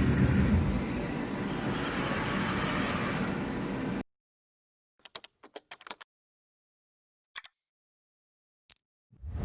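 Clausing Metosa SM2440VS CNC lathe running under power: a dense, steady mechanical noise that cuts off abruptly about four seconds in. A few short clicks follow, then a whoosh near the end.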